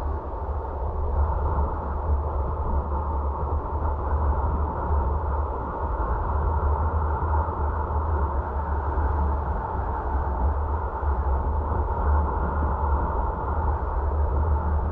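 Steady road noise from a moving car: a low tyre and engine rumble with a hiss of wind and tyres over it.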